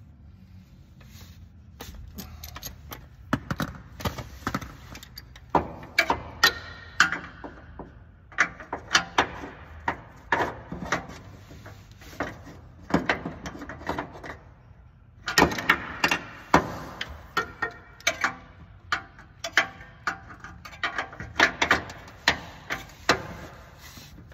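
Metal hand tools, a ratchet with socket and extension, clicking and clinking against the exhaust bolts under a Mazda Miata as the header is unbolted from the downpipe. The clicks come in an irregular run of sharp strokes, with a denser, louder stretch about two thirds of the way through.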